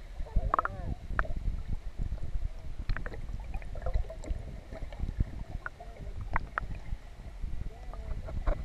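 Steady low rumble of wind on the microphone, with scattered knocks and brief, faint voices a few times.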